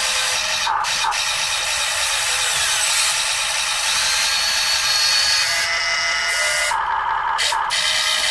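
Electric motors of a 1:14 scale RC excavator whirring steadily as it digs and swings its boom and bucket, with two short breaks near the end as the motion stops and restarts.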